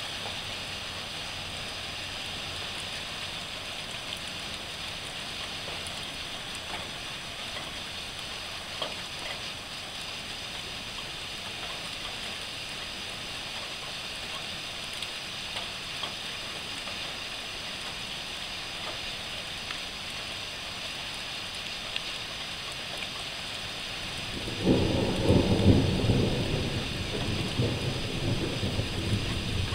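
Steady hiss of heavy rain, then a loud rumble of thunder breaks in suddenly about three-quarters of the way through and rolls on, rising and falling, to the end.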